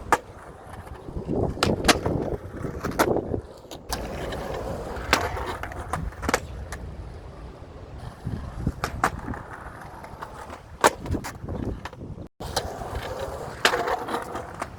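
Wind buffeting the microphone in uneven gusts, with a deep rumble and scattered sharp knocks and clicks.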